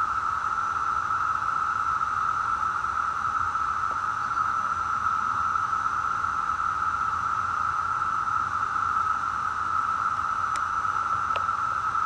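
Chorus of Brood X periodical cicadas: a steady, unbroken drone held at one pitch, with two faint ticks near the end.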